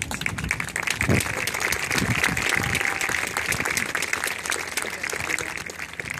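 Crowd applauding with some cheering, swelling about a second in and thinning near the end.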